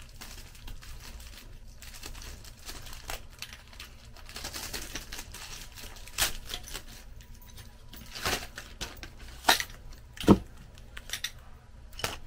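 Metal shelf parts being handled and fitted together: scattered clicks, light knocks and rustling, with a few louder knocks in the second half.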